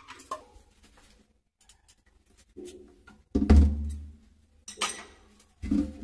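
Espresso portafilter and plastic scoop knocking against a stainless steel sink while being washed: two light clinks at the start, then several separate knocks and thuds, the heaviest about three and a half seconds in.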